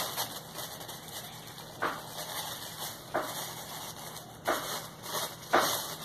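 Toy pieces being handled and set down: a few sharp knocks and clacks about a second apart, the loudest near the end, over a steady background hiss.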